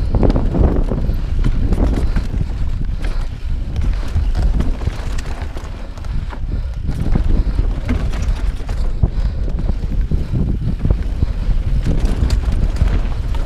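Wind buffeting the helmet camera's microphone while a Santa Cruz Bronson mountain bike rattles and knocks over rough singletrack at speed.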